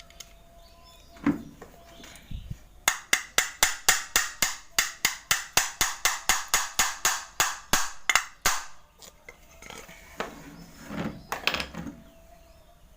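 Rapid hammer blows on metal, about five a second for some five seconds, then a few softer knocks near the end: repair work on a motorcycle's clutch housing.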